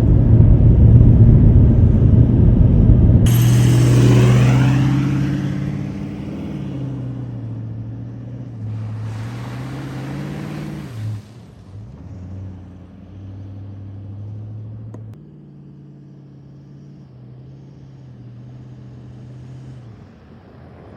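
Four-wheel drive driving on a dirt road, heard from inside the cab: a loud road and tyre rumble for the first three seconds that cuts off suddenly, then the engine humming with its pitch rising and falling as the vehicle changes speed, growing quieter toward the end.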